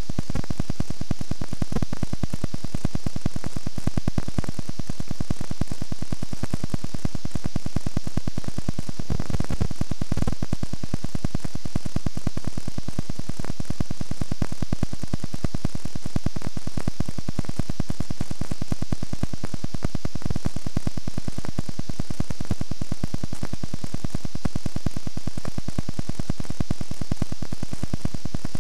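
Steady, loud static hiss with a fine, even buzz: noise from a blank stretch of VHS tape with no picture or programme sound.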